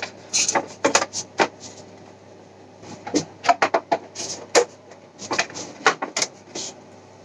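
Irregular knocks, clicks and rustles of a 3D-printed plastic helmet being handled, in three clusters, over a steady low hum.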